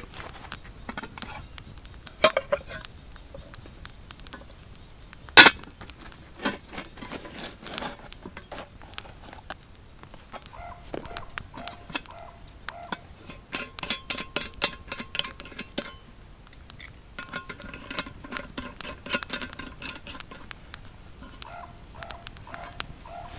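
Small metal cook pot and lid being handled: scattered clinks and knocks, with short ringing from the metal in two clusters in the second half. One sharp knock about five seconds in is the loudest sound.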